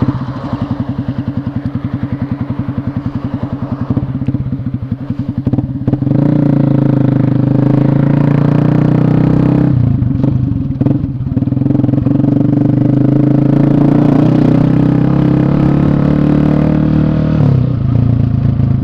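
Yamaha Fazer 250 single-cylinder engine with a loud exhaust, ticking over with an even, lumpy beat while waiting at a crossing. About six seconds in it pulls away and runs louder under acceleration, with brief dips near the middle and near the end as it shifts gears.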